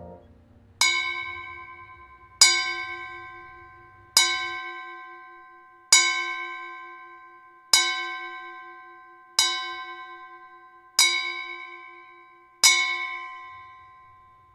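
A bell struck eight times at the same pitch, about every second and a half to two seconds, each stroke ringing out and fading before the next, like a slow toll in a film's music score.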